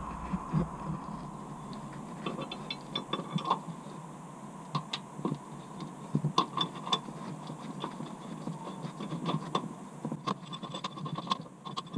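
Bolt and washer being fitted and turned by hand into a tow-hitch mounting bracket on a car's chassis rail: scattered small clicks and scrapes.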